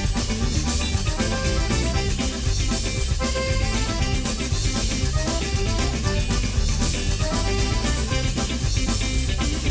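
Upbeat background music with drums and a steady beat, with accordion.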